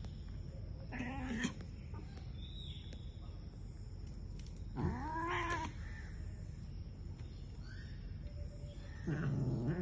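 Cat meowing three times, a few seconds apart, the middle call the longest; meowing to be fed.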